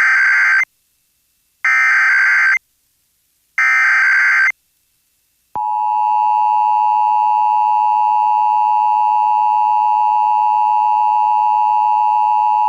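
Emergency Alert System SAME header: three bursts of data tones, each about a second long and about a second apart. The steady two-tone EAS attention signal follows, starting about five and a half seconds in. Together they open a required monthly EAS test relayed over radio broadcast.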